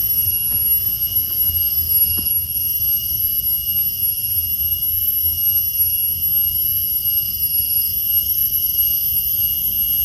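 Forest insects shrilling in a steady, high-pitched drone, with a low rumble underneath.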